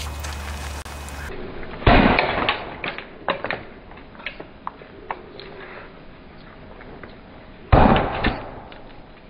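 A 10-pound sledgehammer smashing an aftermarket lawnmower carburetor on a wooden stump: two heavy blows about six seconds apart, each followed by small clattering ticks as pieces fly off.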